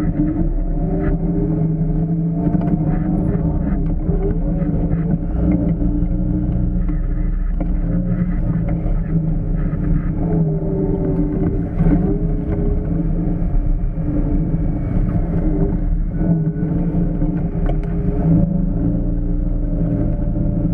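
Off-road vehicle engine running under varying throttle, its pitch rising and falling as it is driven.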